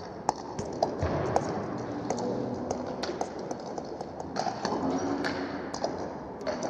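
Table tennis balls clicking off bats and the table in a multiball drill: sharp, irregular ticks, about one or two a second.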